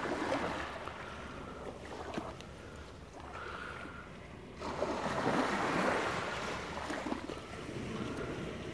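Sea waves washing onto a sandy beach, with one louder surge of surf about halfway through.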